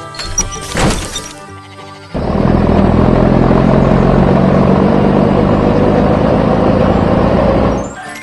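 Cartoon background music with two quick sharp hits about a second in, then a loud, steady rushing sound effect for about five and a half seconds that fades out near the end.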